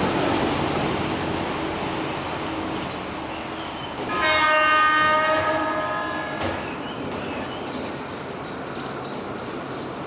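A JR 209 series 3500-subseries electric train sounds one air-horn blast of just over a second about four seconds in, over the steady noise of the train running. The blast is the warning required at the whistle sign before an ungated level crossing.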